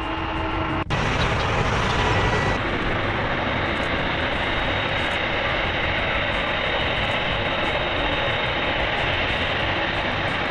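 Boeing 747-8 turbofan engines running steadily as the jet taxis: dense steady jet noise with a thin high whine. The sound changes abruptly just under a second in, then holds steady.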